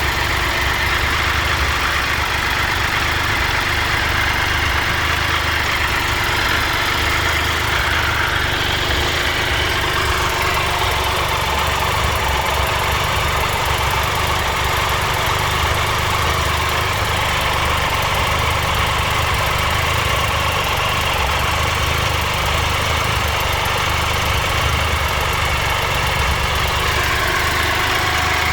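2013 Triumph Tiger Explorer's three-cylinder engine idling steadily with a ticking, rattling noise that a valve clearance adjustment has reduced but not cured. The dealer's leak test traced it to a minor leak at the exhaust header.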